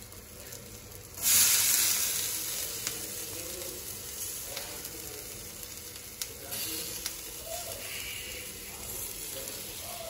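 Chilli chutney poured into a hot frying pan of eggs and onion in oil. It sets off a sudden loud sizzle about a second in, which slowly dies down, with a few light clicks.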